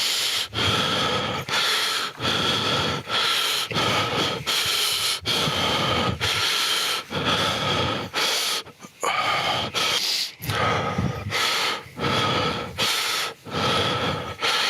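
A man's heavy, loud breathing, one breath about every second, each with a thin squeaky edge: the panting and squeaking that the video is about.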